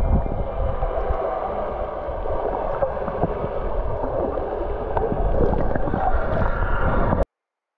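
Underwater sound picked up by a camera held beneath the surface while snorkeling: muffled, rushing and gurgling water with a deep rumble and small scattered clicks. It cuts off abruptly about a second before the end.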